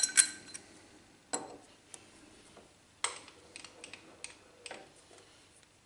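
Metal-on-metal handling of a steel lathe dog and test bar being fitted between lathe centers: a loud ringing clink at the start, then a handful of lighter knocks and clicks, the strongest about a second and a half and three seconds in.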